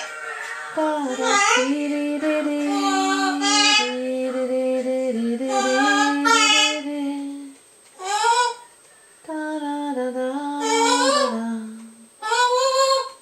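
Pet parrot vocalising in a singing-like voice: long held notes that step up and down in pitch, then a few short rising calls with pauses between them.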